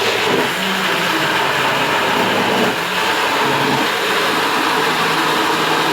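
Electric blender running steadily at high speed, puréeing tomatoes, cayenne pepper, garlic and onion for a jollof stew base.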